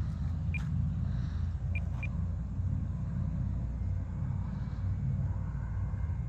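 Steady low rumble across the whole stretch, with four short high beeps in the first two seconds, the last two close together.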